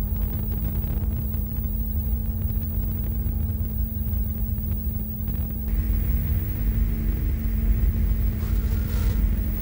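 Dense low rumbling noise drone with a steady hum underneath, as on an experimental film soundtrack. A thin hiss above it drops away about halfway through.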